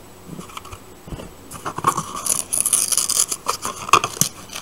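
Paper wrapping on a small watercolour sample palette pack being peeled and torn open by hand: a run of scratchy rustles and scrapes starting about a second and a half in.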